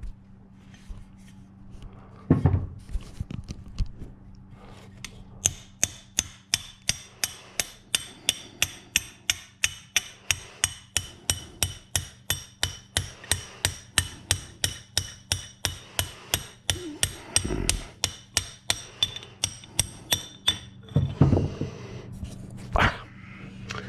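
Hammer tapping a brass drift to drive a pin out of a Jaguar MKII differential: a steady run of sharp metallic taps, about three a second, each with a short ring. There is a single knock before the run starts and a couple of heavier knocks near the end.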